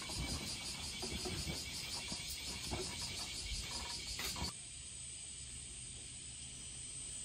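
Cicadas singing in a dense, pulsing high-pitched chorus that cuts off abruptly about four and a half seconds in, leaving a quieter steady high buzz.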